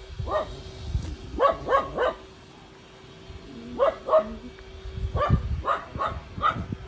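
A dog barking repeatedly in short runs of sharp barks, with a pause of a second or so in the middle.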